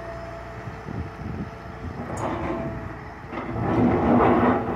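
Liebherr 936 crawler excavator's diesel engine running steadily. From about three and a half seconds in it grows louder with the grinding clatter of the bucket digging into stone and concrete rubble.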